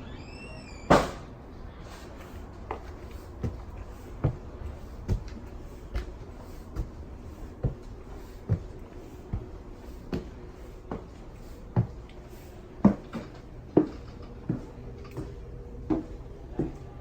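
A string of short, light knocks, roughly one a second and uneven in strength, the loudest about a second in, over a faint steady hum.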